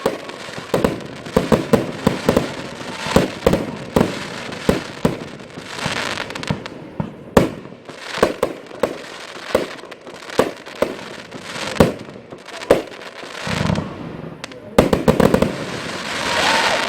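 Category F2 consumer fireworks going off: a string of sharp bangs, about one to two a second, with stretches of crackle, the last building up near the end.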